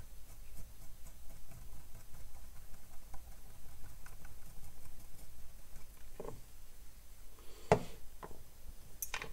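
Cotton swab scrubbing the wet surface of a circuit board, a faint, irregular scratchy rubbing. It is followed by a few light clicks, the sharpest about three-quarters of the way through.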